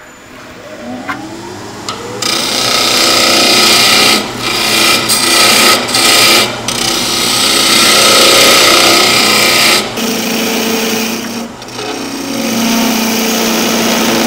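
Wood lathe motor spinning up with a rising whine, then a turning gouge cutting the outside of the spinning wood blank: a loud, dense shearing hiss of shavings that breaks off for a moment several times as the tool is lifted and set back on the wood.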